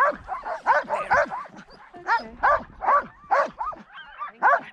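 Sled dogs of a harnessed team barking and yipping in short, high, repeated calls, a couple a second, with a brief lull about a second and a half in.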